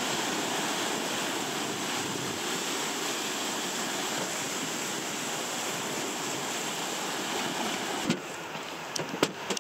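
River rapids rushing steadily, heard close up from a boat running through whitewater. About eight seconds in the rush drops off sharply, and a few sharp knocks follow.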